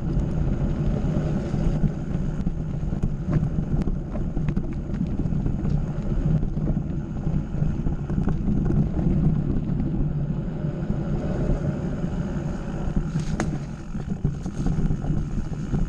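Mountain bike riding fast along a dirt and gravel forest trail: a steady low rumble of the tyres rolling over the track, with scattered small clicks and rattles from stones and the bike.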